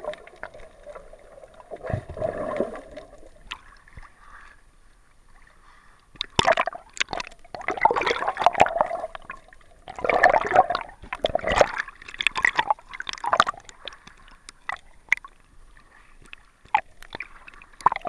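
Water gurgling and splashing against a waterproof action-camera housing, with two long spells of busy sloshing and clicking about six and ten seconds in.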